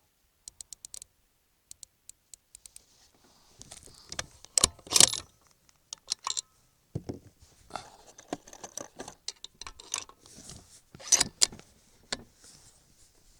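Metallic clicks and clunks of a Savage Model 10 BA .308 bolt-action rifle being handled between shots, its bolt worked to eject the spent case and chamber the next round. A few faint ticks come first, then a string of sharper knocks, the loudest about five seconds in and again near the end.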